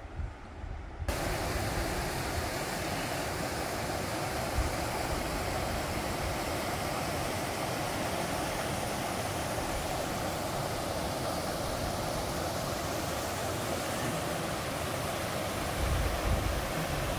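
Steady rush of a small waterfall and rapids pouring over rock into a river pool, starting about a second in, with a brief low rumble near the end.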